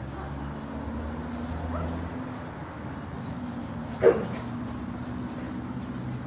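Dog tugging on a flirt pole lure, giving one short yip about four seconds in that falls in pitch, over a low steady hum.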